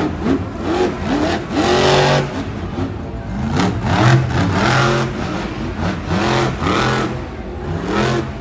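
El Toro Loco monster truck's supercharged V8 revving hard in quick repeated bursts, its pitch climbing and dropping again and again as the throttle is worked over the jumps and into a wheelie.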